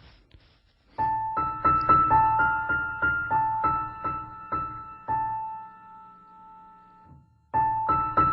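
Piano music: a simple, gentle melody of single struck notes with a low accompaniment. It comes in about a second in, fades on a held note, stops briefly and starts again near the end.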